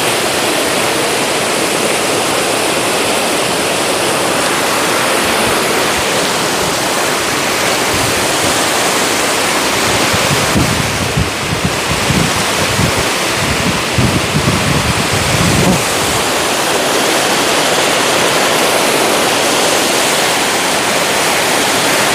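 Waterfall pouring: a loud, steady rush of falling water, with a few seconds of low buffeting on the microphone about halfway through.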